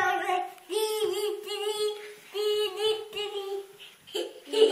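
A young child's high voice singing out long, drawn-out notes, three in a row, then a louder cry near the end.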